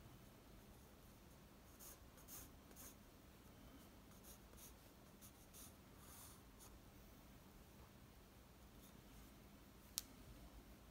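Faint pencil strokes scratching on drawing paper, in a few short runs of quick strokes through the first seven seconds, then one sharp click near the end.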